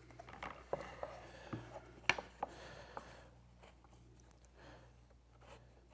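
Light handling noises of small wooden parts being set on a table saw sled: a few soft taps and a little rubbing in the first three seconds, the sharpest tap about two seconds in, then quieter.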